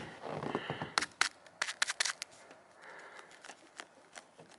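Dry, bitterly cold snow crunching: a quick run of sharp crunches and clicks about a second in, then a few scattered fainter ones.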